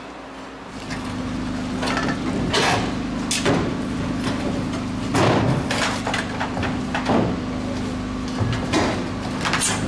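Metal gas cylinders knocking and clanking, about seven sharp knocks, as they are handed down from the cargo bed of an army truck, over a steady engine hum that starts a little under a second in.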